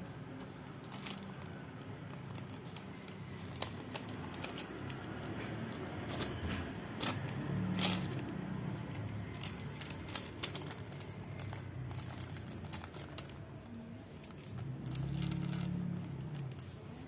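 Thin plastic sheet crinkling and crackling as a sharp slaughtering golok slices through it, in scattered irregular clicks. A low hum swells twice, midway and near the end.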